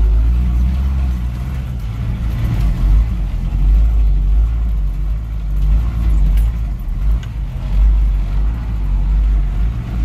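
Engine of an old loaded grain truck running under load, heard from inside the cab, geared in low axle range. It is a little loud, with a steady low drone whose loudness rises and falls as the truck pulls across rough field ground.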